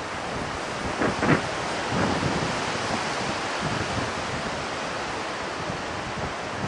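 Wind blowing over the camera microphone: a steady rushing noise, with a brief louder bump about a second in.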